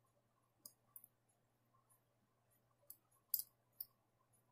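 Faint, scattered clicks of a flag pick working the pins inside a Mul-T-Lock Jr. dimple lock held under tension: about five small ticks, the loudest about three and a half seconds in, over a faint steady hum.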